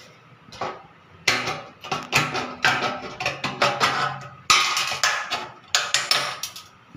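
Aviation tin snips cutting through thin pre-painted sheet-metal flashing: a quick run of crisp snips, about two or three a second, starting about a second in and stopping just before the end.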